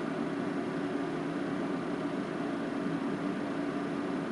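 Steady background hum with an even hiss, unchanging throughout.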